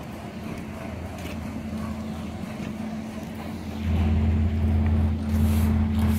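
An engine running at a steady idle close by, a low hum that gets louder about four seconds in.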